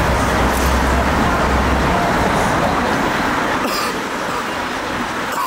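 Road traffic noise: a vehicle's low rumble passes and drops away about two seconds in, leaving a steady hiss of street noise.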